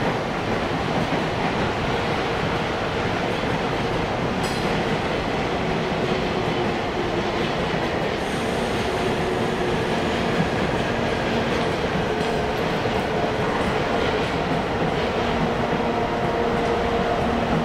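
EF64 electric locomotive hauling a train slowly past, with a steady running rumble, faint humming tones and wheels clacking and lightly squealing on the rails. A brief sharp clank comes about four and a half seconds in.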